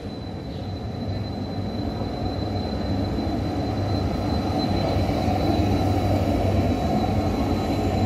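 Stadler Variobahn five-section low-floor tram running past on street track, its running noise growing louder as it approaches and goes by close, loudest about six seconds in.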